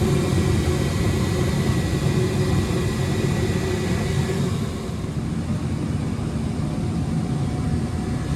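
Gas furnace running on a call for heat, burners firing with the draft inducer motor going: a steady rumble that eases slightly about four and a half seconds in.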